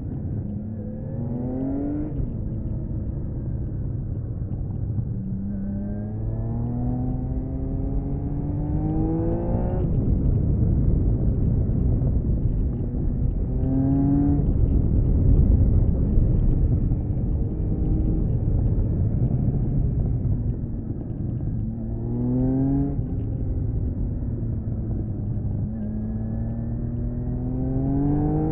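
1979 Honda CBX 1000's stock-exhausted, air-cooled inline six-cylinder engine pulling hard through the gears, its pitch climbing and dropping back at each shift several times. In the middle a loud rushing noise swamps the engine note for several seconds.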